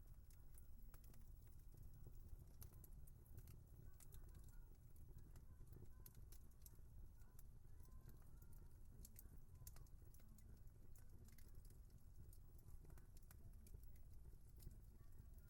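Quiet wood fire crackling: irregular sharp snaps and pops over a low, steady rumble of the burning logs.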